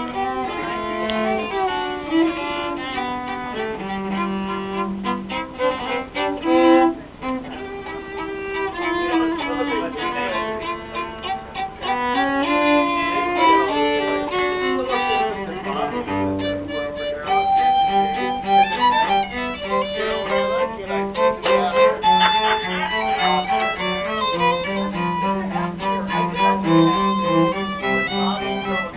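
A violin and a cello playing classical music together, bowed notes moving from one pitch to the next without a break.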